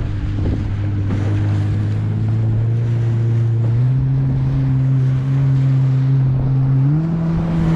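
A jet ski's engine runs close by with a steady drone. Its pitch steps up twice as the throttle opens. Water and wind noise sit underneath.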